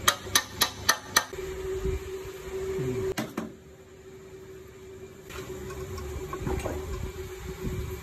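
Five quick, sharp metal taps about a quarter second apart as a hand tool strikes at the timing gears of a Toyota 2KD diesel engine, followed by a steady hum with a few fainter knocks.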